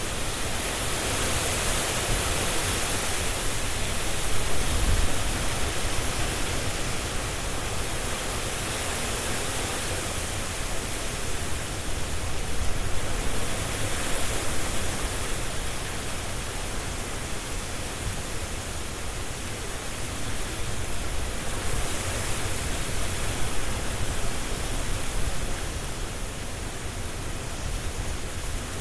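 Strong, gusty wind through trees: a steady rushing hiss of tossing leaves with a low rumble beneath, swelling and easing in slow gusts.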